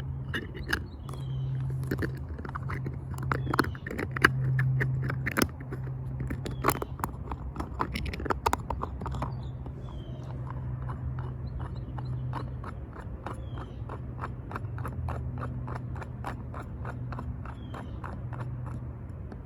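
Small plastic parts of a 3D-printed screw-top microSD card case being handled, with sharp clicks and scrapes. The clicks are irregular at first, then settle into an even run of about three a second over the second half. A steady low hum sits underneath.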